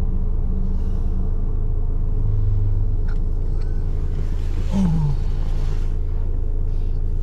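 Steady low engine and road rumble inside the cabin of a Ford Ranger pickup driving along.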